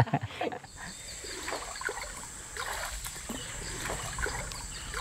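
Shallow stream water splashing and trickling as people wade through it, in small irregular splashes, with a thin steady high tone behind.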